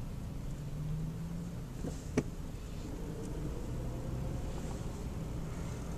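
Steady low engine and road rumble heard from inside a moving car, with one sharp click about two seconds in.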